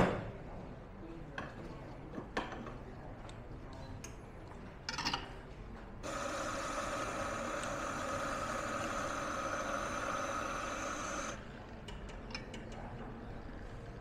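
A machine runs steadily for about five seconds, starting and stopping suddenly, after a few light knocks and clatters.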